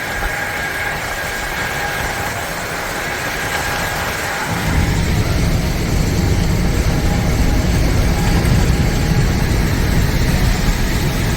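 A machine running steadily with a faint whine, joined about halfway through by a deep rumble.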